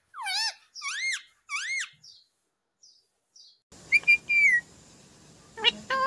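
Indian ringneck parakeet calling: three quick rising-and-falling calls in the first two seconds, a pause, then a longer call about four seconds in and another starting just before the end.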